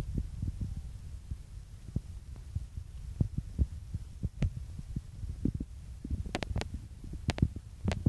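Low rumbling and thumping handling noise on a handheld phone's microphone, with a few sharp, short knocks near the end.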